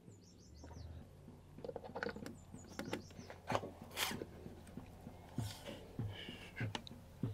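Quiet handling of an e-bike charger: scattered light clicks and knocks as its plugs go into the bike battery and then into a portable power station.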